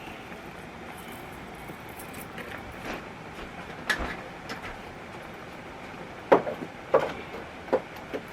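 A few light clicks and knocks from kitchen items being handled over a steady low hiss: one about halfway through, then three more close together near the end.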